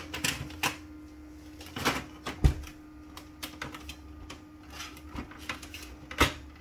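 Plastic clicks and knocks as a drum unit with its toner cartridge is pushed into a Brother laser printer and latches into place. There is a low thump about two and a half seconds in and a sharp click about six seconds in, over a faint steady hum.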